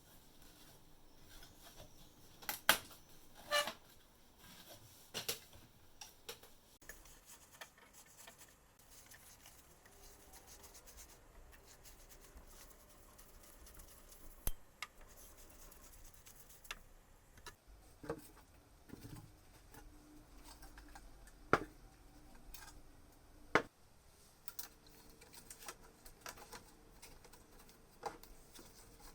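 Scattered light clicks and taps of small hard parts and tools being handled, over a faint steady hum.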